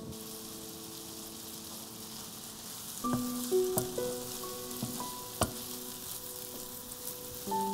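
Chopped onion sizzling in melted butter in a frying pan, a steady hiss. From about three seconds in, a wooden spoon stirs it, with a few sharp taps against the pan, the loudest about five seconds in. Soft music with long held notes plays alongside.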